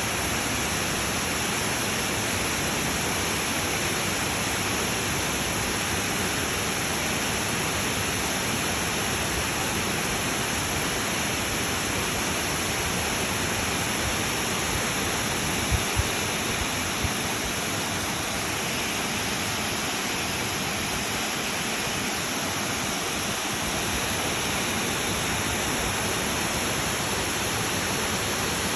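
Steady rushing of water in a mountain stream. A few brief low bumps come a little past the middle.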